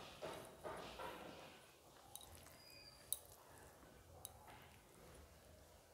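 Near silence, with faint squishing of cooked rice and cabbage curry being mixed by hand on a steel plate and a few light clicks.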